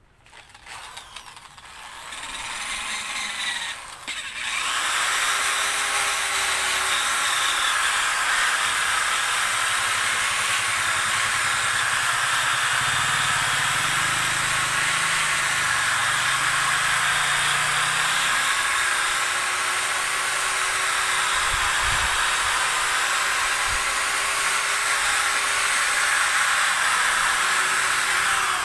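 Handheld electric rotary polisher with a foam pad running, buffing polishing compound onto a faded plastic headlight lens. It spins up over the first few seconds, cuts out briefly about four seconds in, then runs steadily.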